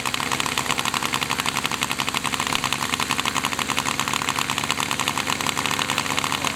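Model aircraft engine running steadily and close by, with rapid even firing pulses over a low hum.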